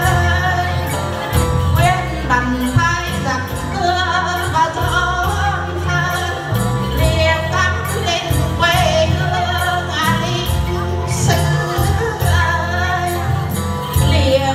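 A group of women singing together in Vietnamese, accompanied by plucked long-necked đàn tính lutes and rhythmic jingling from shaken bell rattles, over a steady low accompaniment.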